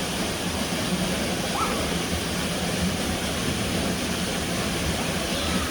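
Steady rushing of falling water from a waterfall, with a brief faint high sound a little over a second in.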